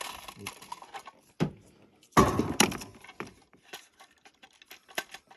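Hard plastic parts of an outdoor electrical box being handled and fitted together: scattered clicks and knocks, with a louder rattling scrape lasting about a second, starting about two seconds in.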